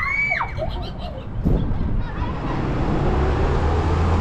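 A child's short, high, arching shout at the start, then a knock and a steady rush of road noise with a low hum from a passing motor vehicle, growing in the second half.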